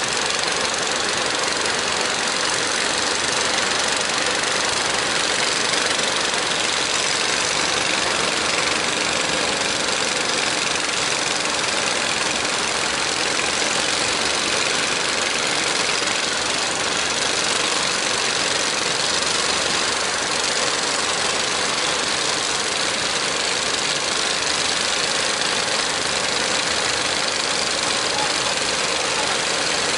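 Diesel engines of several wooden fishing boats running steadily with a knocking chug as they push out through rough water, over a constant rush of water and wind.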